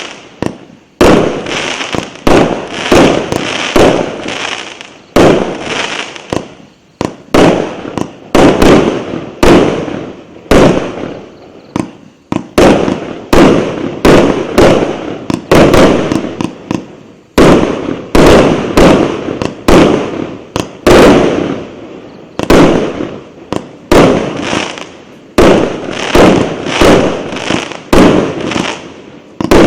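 A multi-shot consumer firework battery (cake) firing shot after shot, with sharp reports about one to two a second, each trailing off before the next.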